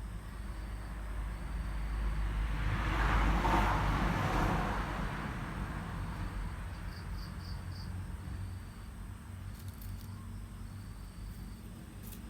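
A vehicle passing by, its noise swelling for a couple of seconds and then fading away. A steady low hum runs underneath, with faint high-pitched insect chirps.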